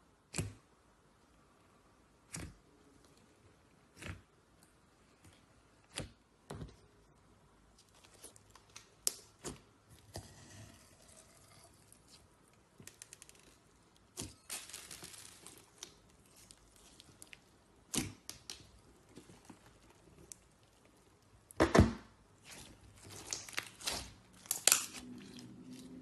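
Slime being played with by hand: sharp pops spaced about two seconds apart, then softer crinkling, and a louder run of crackles and pops near the end.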